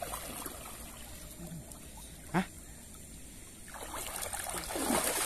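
Shallow river water sloshing and splashing around a man's legs as he wades in, with one short sharp sound about two and a half seconds in and heavier splashing near the end.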